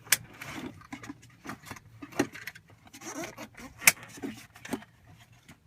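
Metal LATCH connectors of an infant car seat rattling and scraping as they are pushed onto a car's lower anchors, with scattered clicks and two sharp ones, right at the start and about four seconds in.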